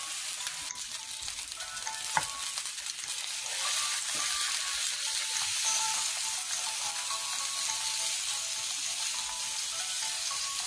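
Beef roast searing in olive oil in a nonstick frying pan, sizzling steadily. A single sharp knock about two seconds in, and the sizzle grows louder soon after as the roast is turned over with a wooden spatula.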